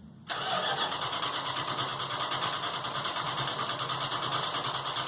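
Engine cranking on its starter without catching, in an even fast pulsing run that starts abruptly just after the beginning and cuts off near the end: a no-start condition.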